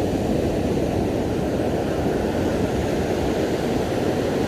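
Steady low rumble of sea wind on the phone's microphone, mixed with breaking beach surf.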